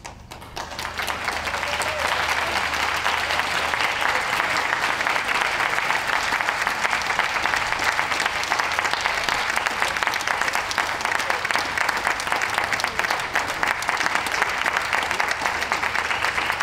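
Audience applauding, building up over the first second or two and then carrying on steadily without a break.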